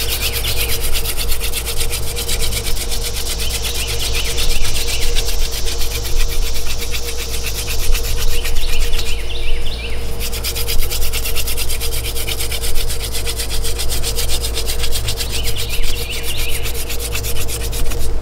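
Wooden hand-drill spindle spun fast between the palms, its tip grinding in the notched fireboard in a steady dry rasping rub, with a brief break about nine seconds in. This is friction-fire drilling at the stage of building an ember in a nearly full notch of dust.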